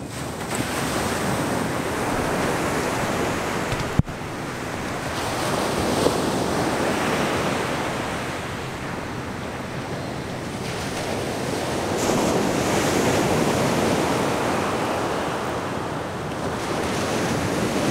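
Ocean surf breaking on the beach, swelling and easing every few seconds, with wind buffeting the microphone. A short sharp click about four seconds in.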